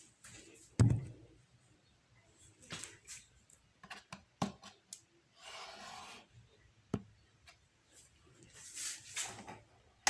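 Scattered handling noises: sharp clicks and knocks, with a short rubbing sound about halfway through.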